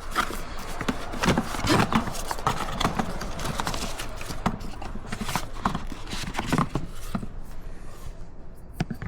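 Irregular clicking and knocking of a camera clamp and mount being handled and fitted, hard parts tapping and clattering against each other.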